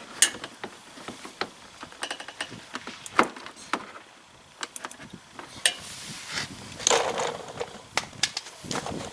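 A screwdriver tapping and prying a mud-guard retaining clip onto the wheel-well edge: irregular clicks and sharp knocks, a few much louder than the rest, with a short scrape about seven seconds in. The clip is going on hard.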